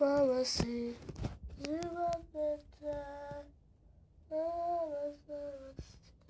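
A young boy singing a wordless tune in short held notes, with a pause about halfway through. A few light knocks sound between the notes.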